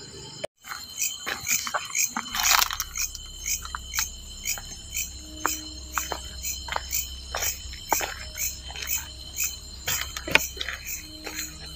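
Crickets chirping in a steady repeating rhythm, about two to three chirps a second, over a continuous high insect trill. Scattered short crunches and rustles come from footsteps on a dirt path.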